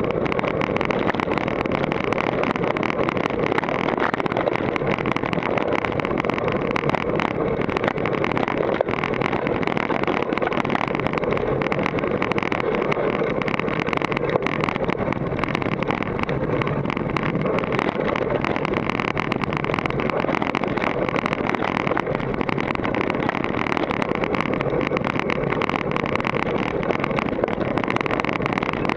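Steady rush of riding wind on a Contour+2 action camera's microphone, mixed with a dense fine rattle and clatter as the mountain bike runs fast over a dry dirt trail.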